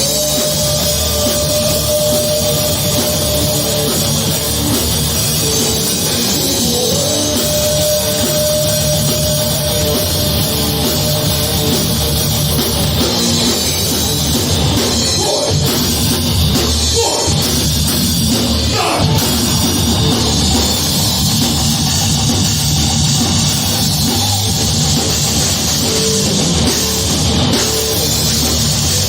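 Heavy metal band playing live, with distorted guitars and a pounding drum kit. A long held note sounds over the riff near the start and again a few seconds later, and sliding notes come about halfway through.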